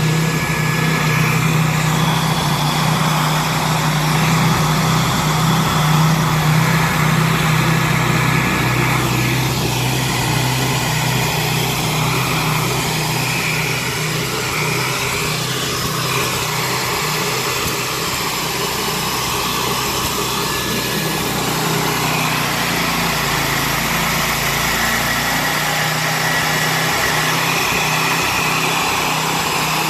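Hand-held hair dryer running steadily close by, a constant motor hum under the rush of blown air.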